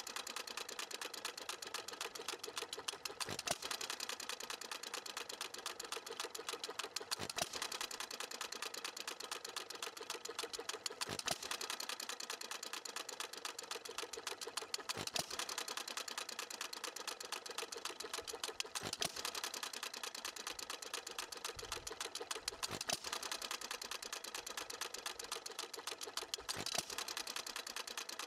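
Stuart Little Major small air-cooled hit-and-miss engine running on its governor: a sharp firing stroke about every four seconds, with rapid, even clicking of the mechanism in between as the flywheel coasts on the miss cycles.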